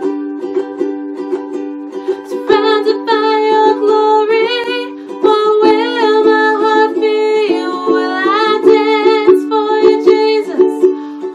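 Ukulele strummed in chords, alone for about the first two and a half seconds, then joined by a woman singing along.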